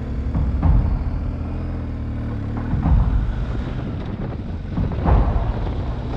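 Motorcycle engine running steadily under way, with a few short knocks.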